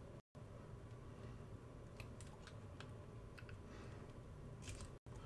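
Faint scraping ticks of a knife shaving down a small 3D-printed plastic clock part: a handful of short, sharp clicks in the second half.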